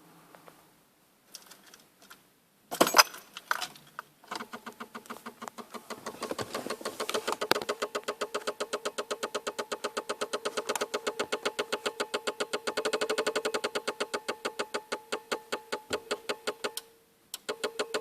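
Fast, even clicking, several beats a second over a steady hum, from under the steering wheel of an Audi 80 1.9 TDI: the car's strange fault noise. It starts about four seconds in after a few small clicks and a loud thump, grows louder, and stops for a moment near the end before starting again.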